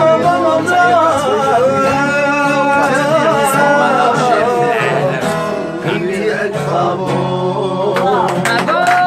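Live singing with instrumental backing: a voice holding long, wavering notes without words over steady accompaniment.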